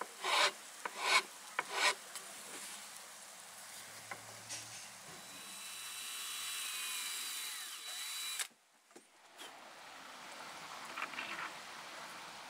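Hand file scraping across the end of a wooden walking-stick shaft in three even strokes, taking it down to fit a brass ferrule. Then a power tool runs steadily with a thin high whine for several seconds and cuts off suddenly, followed by a few faint scrapes.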